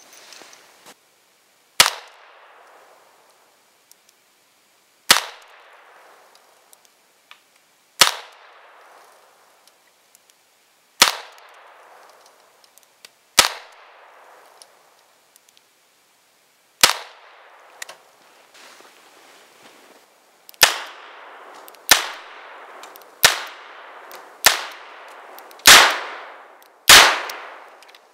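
Llama Martial .38 Special revolver firing twelve shots, each followed by a short echo. The first six are slow and deliberate, about three seconds apart; the last six come faster, a little over a second apart, and the last two are the loudest.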